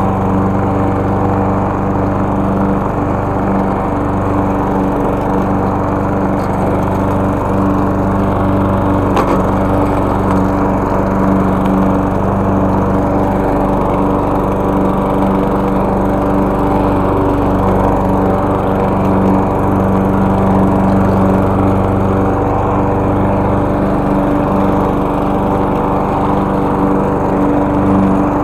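Small gas engine of a walk-behind lawn mower running steadily at an even pitch while mowing grass.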